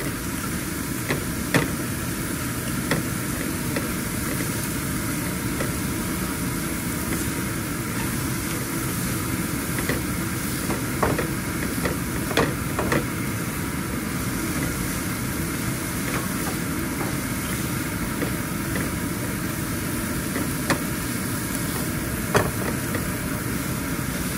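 Steady hum of a kitchen exhaust fan over onions, garlic and green chilies cooking gently in oil in a pan, with a spoon clicking against the pan a handful of times as it is stirred.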